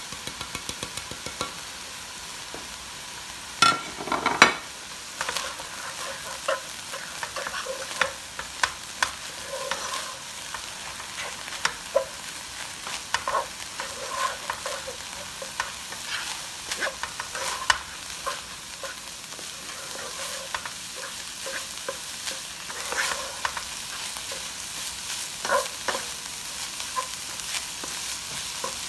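Ground beef sizzling in a large nonstick pot while a wooden spatula stirs it, scraping and knocking against the pan in uneven clicks over a steady hiss. The loudest knocks come about four seconds in.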